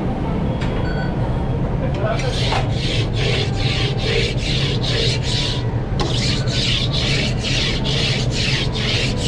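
Metal grill scraper rasping back and forth across the steel plate of a clamshell griddle, scraping off cooked-on residue: rhythmic strokes about three a second, starting about two seconds in with a brief pause partway through, over a steady low hum.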